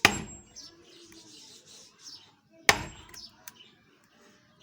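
A big hammer striking a block of wood, two heavy blows about two and a half seconds apart, each dying away quickly.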